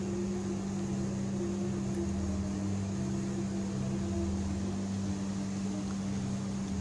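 Steady machine hum, a constant low drone with a slowly shifting rumble beneath it.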